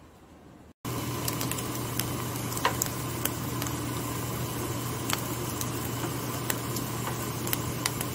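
Scrambled eggs frying in a nonstick pan: a steady sizzle with scattered sharp crackles and pops, over a low steady hum. It starts suddenly about a second in, after a moment of quiet.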